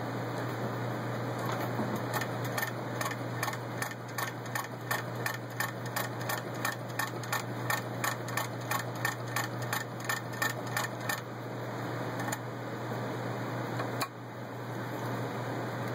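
1910 Singer 66-1 treadle sewing machine turned by hand at the handwheel, stitching through six layers of denim: a regular clicking of the needle and feed, about three stitches a second, which stops about eleven seconds in. A single knock follows near the end, over a steady low hum.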